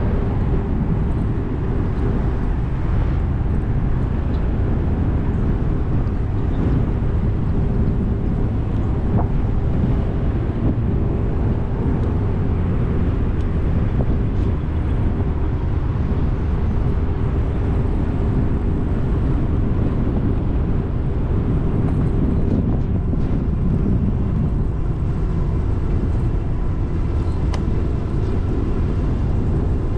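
Steady rush of wind and rolling noise from riding an electric bike, with a faint steady hum underneath.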